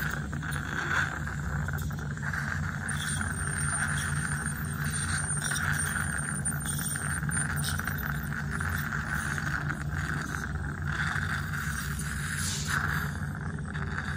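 Ultrasonic dental scaler running on the teeth during tartar removal, with a steady hiss and low hum from the dental unit and suction. A faint high whine comes in from about 3 to 7 s.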